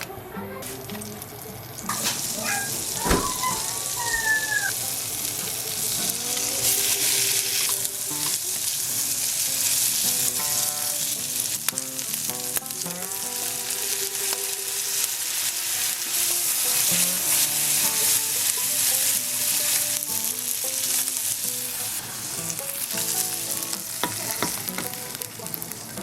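Squid legs frying in butter and soy sauce in a hot pan, a steady loud sizzle that starts about two seconds in.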